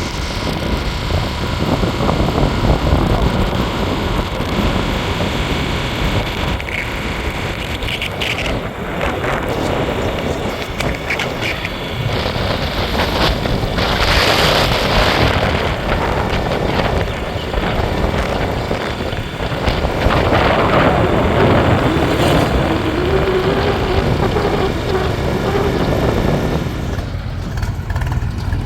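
Diesel engines of a JCB 3DX backhoe loader and farm tractors running steadily under load, with a brief louder rush of noise about halfway through and a pitched whine for a few seconds near the end.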